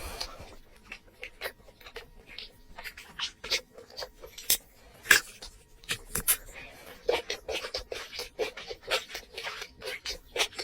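Close-miked eating sounds: an irregular run of wet chewing clicks and lip smacks, busier in the second half.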